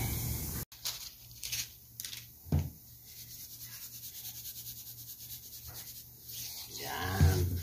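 Soft handling noises of hands rubbing and pressing a large raw fish on a metal tray, with a few light knocks, over a faint low hum.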